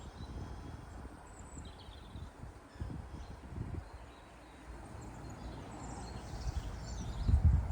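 Songbirds chirping faintly in short scattered calls over irregular low rumbling buffets, the loudest of them near the end.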